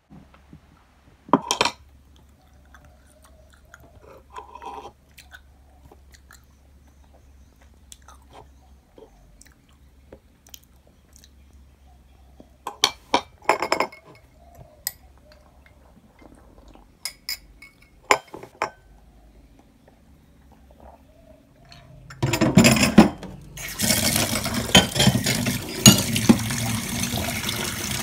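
Scattered light clinks and knocks of a metal spoon against glass and dishes while eating; about 22 seconds in, a kitchen tap is turned on and water runs steadily into a stainless-steel sink as a glass cup and cutlery are rinsed, with glass and cutlery clinking under the stream.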